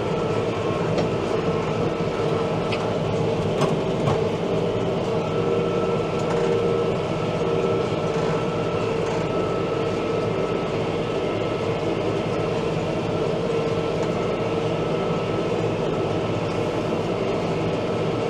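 New Holland Workmaster tractor running steadily while pulling a square hay baler: a steady engine drone mixed with the baler's mechanical clatter, with a couple of sharp clicks about four seconds in.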